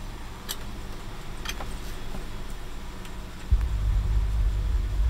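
A vehicle engine running with a steady low hum and a few light clicks; about three and a half seconds in, a louder low rumble comes in and holds.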